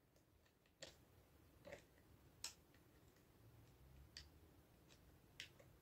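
Near silence broken by about five faint, sharp clicks and taps spaced irregularly, as the plastic parts of an opened wireless speaker are handled.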